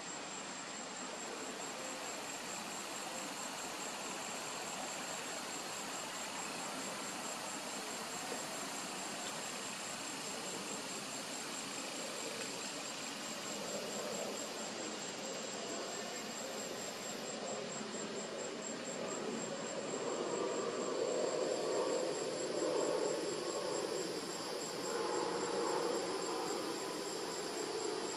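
Insects trilling steadily outdoors: a high, fast-pulsed chirring that never stops. A low wash of noise swells in the second half.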